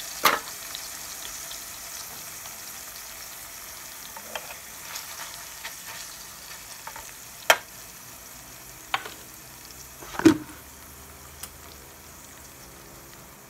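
A thin steak frying in butter in an aluminium mess tin: a steady sizzle that slowly softens. It is broken by a few sharp metallic clicks of a fork against the tin, the loudest two near the middle and about three quarters of the way through.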